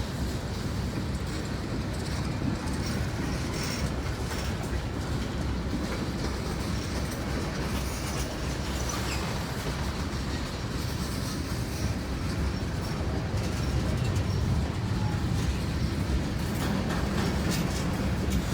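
Freight cars of a long Norfolk Southern train rolling past, a steady rumble of steel wheels on the rails with faint clicks. It grows a little louder about three-quarters of the way through.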